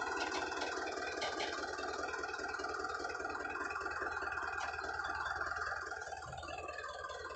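A Powertrac Euro 55 tractor's diesel engine runs steadily under load, pulling a trolley piled high with sugarcane. It gets a little quieter about six seconds in.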